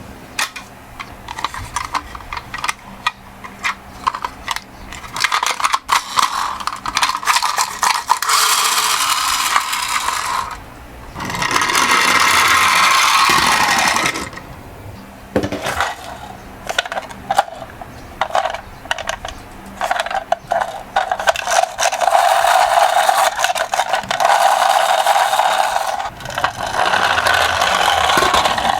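Miniature toy ambulance and bus cars rolling down a slope: the wheels rumble and rattle along in runs of a few seconds, with many small clicks and knocks in between.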